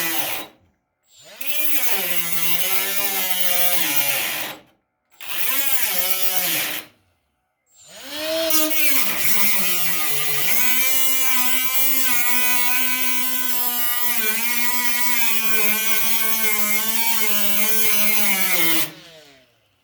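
Cordless electric cutoff tool with a small abrasive wheel cutting the sheet-steel quarter panel. It runs in three short bursts and then one long cut of about eleven seconds, each time spinning up in pitch, and its whine sags and wavers as the wheel bites into the metal.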